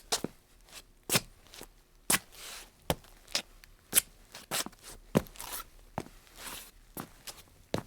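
Dance shoes on a tile floor: irregular taps and heel clicks, about two or three a second, with a few short scuffs and slides between them.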